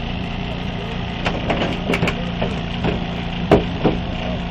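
Car body metal creaking and cracking as the cut roof of an overturned car is pushed over and folded down, a series of sharp cracks with the loudest two near the end. Under it a small engine, the power unit of the hydraulic rescue equipment, runs steadily.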